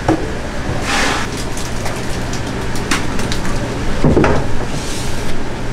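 Sashimi knife slicing fish on a cutting board, its blade clicking and tapping against the board, with a quick run of light ticks in the middle and a couple of swishes, over a steady low hum.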